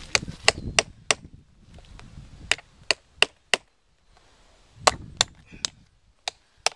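Club hammer driving a long nail through a painted canvas into a tree trunk: thirteen sharp strikes in bursts of two to four, with short pauses between the bursts.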